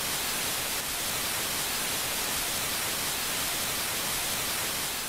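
Steady hiss of TV static, a white-noise sound effect laid over a screen of snow.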